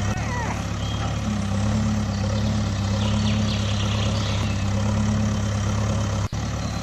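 Small engine of a home-built machine running steadily with an even drone, with a brief drop-out about six seconds in.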